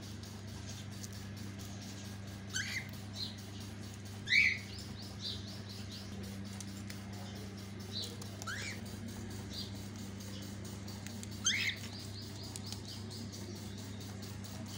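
Cockatiels calling: four short rising whistles, the loudest about four and a half seconds in, with fainter short chirps between them, over a steady low hum.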